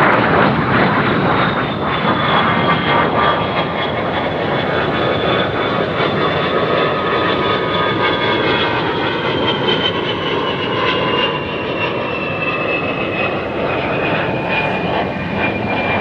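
A Fairchild Republic A-10C Thunderbolt II flying past, its two General Electric TF34 turbofan engines giving a loud jet rush with a high whine that slowly falls in pitch as the aircraft draws away.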